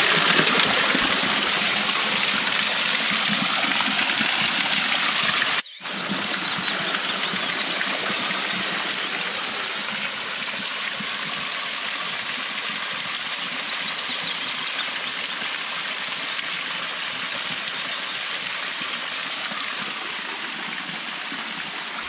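Small limestone waterfall's water splashing down onto moss-covered rock close by: a steady rushing splash that cuts out for a moment about six seconds in.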